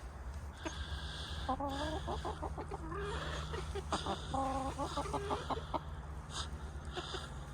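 Backyard chickens clucking, in two short runs of calls a couple of seconds apart, over a steady low hum.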